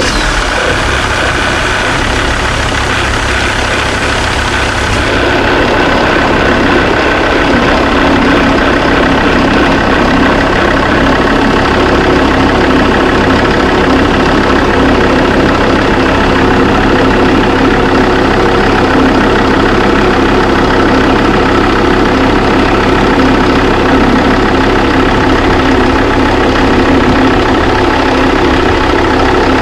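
SsangYong Stavic engine idling steadily with its serpentine accessory belt running over the tensioner and pulleys. About five seconds in, the high hiss falls away and a steady mid-pitched hum comes up.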